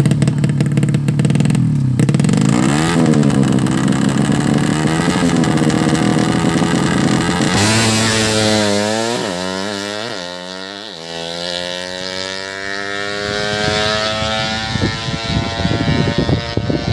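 Tuned 130cc drag-racing motorcycle engine revving hard, then accelerating with quick upshifts, its pitch climbing and dropping with each gear change about halfway in before rising steadily again.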